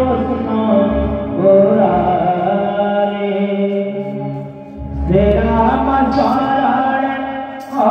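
A voice singing a slow, chant-like song over musical accompaniment. It breaks off briefly a little past the middle and then starts a new phrase.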